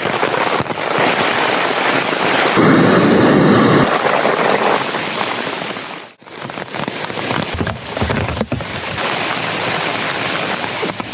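Rain falling steadily in a dense patter, heavier for a second or so about three seconds in, with a brief drop-out just after six seconds.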